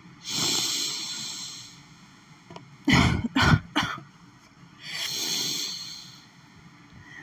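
A woman takes a long sniff, then lets out a quick cluster of two or three sharp sneezes, then takes another long breath in. The sneezing is an allergic reaction to lily pollen.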